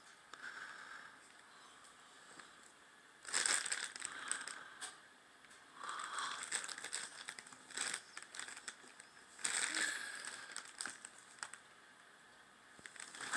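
Crinkling and rustling from handling the radio's red-and-black power cable and its packaging, in four or so bursts of about a second each with quiet gaps between.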